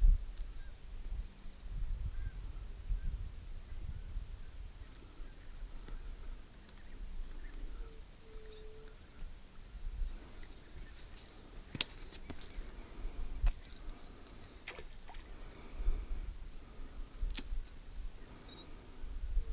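Creek-side ambience: a steady high-pitched insect drone over intermittent low rumbles, with a few sharp clicks in the second half and a brief low tone about eight seconds in.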